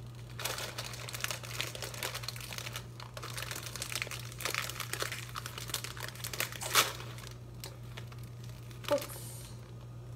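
Crinkling plastic food packaging, the noodle pouch, being handled and torn open, with a sharp snap about two-thirds of the way through.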